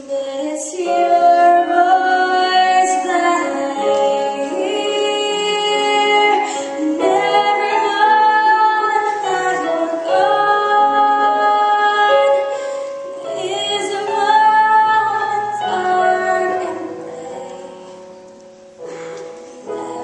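Female voice singing a musical-theatre solo into a microphone over instrumental accompaniment, holding long notes. The music fades down a few seconds before the end, then picks up again.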